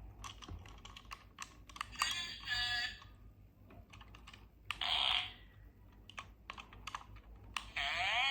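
Buttons of a toy voice changer clicking repeatedly as they are pressed, with three short electronic demo sounds from its small speaker, about two seconds in, about five seconds in and near the end, the last one sweeping down in pitch.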